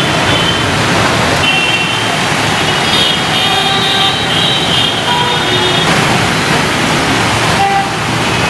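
Traffic on a wet road: a steady hiss of tyres and engines, with short horn toots now and then.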